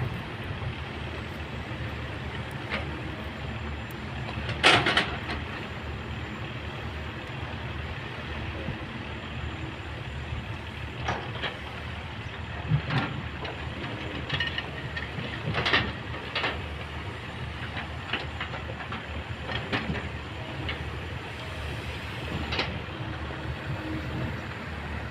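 Kobelco excavator's diesel engine running steadily under work, with scattered sharp clanks and knocks, the loudest about five seconds in.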